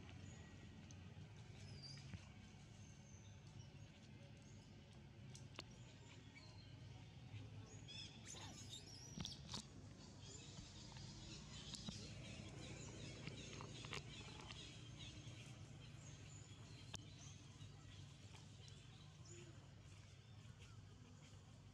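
Near silence: faint outdoor ambience with a steady low hum, a few soft clicks, and a cluster of short high chirps about eight to ten seconds in.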